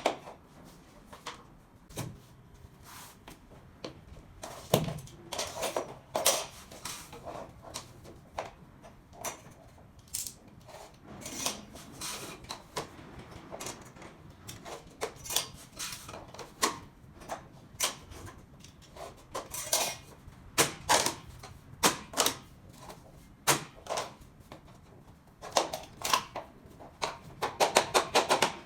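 Irregular clicks, taps and short scrapes of SPC stone-plastic floor planks being handled and fitted together.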